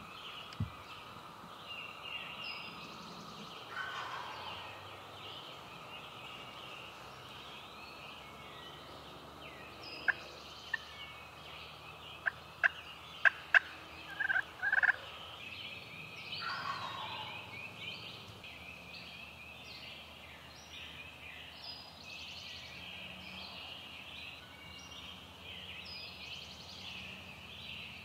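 A wild turkey gobbler gobbling several times, loudest about halfway through, with songbirds singing steadily. Just before the loudest gobble comes a string of sharp, loud clicks.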